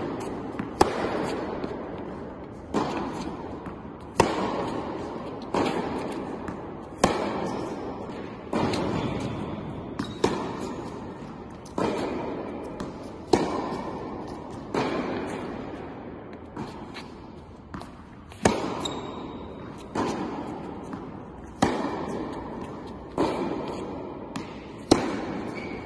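Tennis ball struck back and forth in a baseline rally on an indoor court: sharp racket pops about every second and a half, each ringing out in the large hall's echo.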